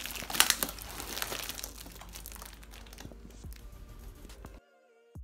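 Plastic-wrapped, taped parcels crinkling and rustling as hands press and shift them, loudest in the first second or so and thinning out. The sound cuts off near the end and faint music takes over.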